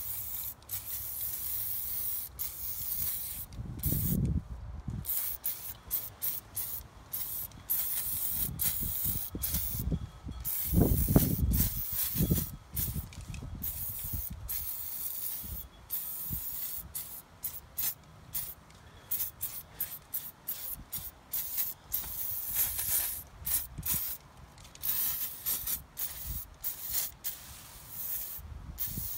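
Aerosol can of AMSOIL Heavy Duty Degreaser spraying in short and longer bursts, the hiss stopping and starting many times. A few low rumbles come through, the loudest about eleven seconds in.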